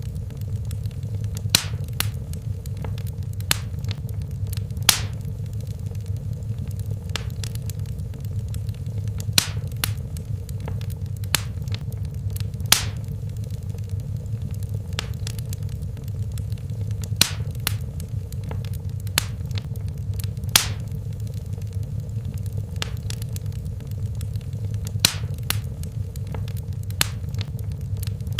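Fire in a fireplace crackling: sharp pops come at irregular moments, about one a second, with a few louder snaps among them, over a steady low rumble of the flames.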